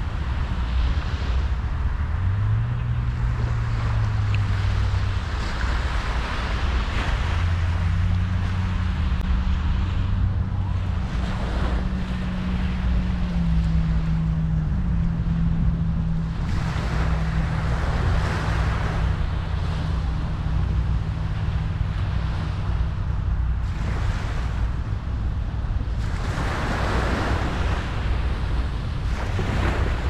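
Ocean waves breaking and washing up a sandy shore, swelling every several seconds, over a steady low wind rumble on the microphone. A low hum underneath steps up and down in pitch a few times in the first half.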